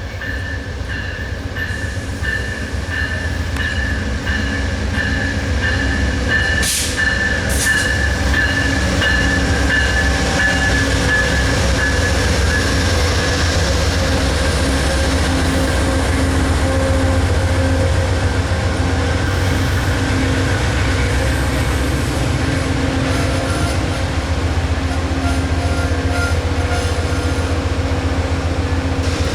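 Amtrak passenger train led by two GE P42DC diesel locomotives, their V16 prime movers rumbling as the train rolls slowly into the station. A steady high-pitched wheel squeal sounds over the first dozen seconds or so, then fades. Two short sharp sounds come about seven seconds in.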